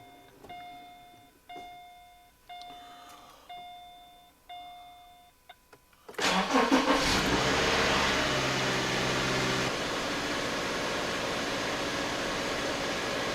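A 2009 Subaru Outback's dashboard warning chime sounds six times, about once a second. Then the boxer engine starts promptly about six seconds in, runs at a raised idle, and settles to a lower steady idle some four seconds later. This is a clean start with the mass airflow sensor freshly cleaned, the fix for the car's hard starting.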